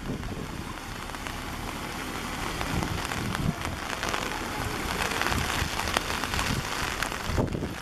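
Steady rushing water noise from floodwater flowing across a flooded street in the rain, growing slightly louder toward the end.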